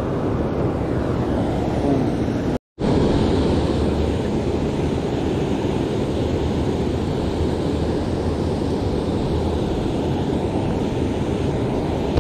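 Steady rush of water spilling over a low river weir, cutting out briefly about two and a half seconds in.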